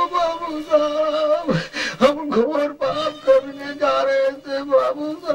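A man's voice, tearful and pleading, speaking Hindi film dialogue with long drawn-out, wavering vowels.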